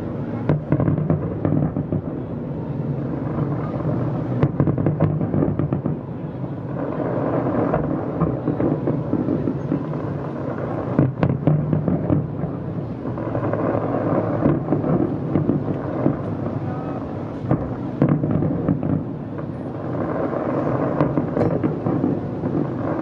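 Distant fireworks display: a continuous low booming of shells bursting, swelling and easing every few seconds, with occasional sharper single bangs.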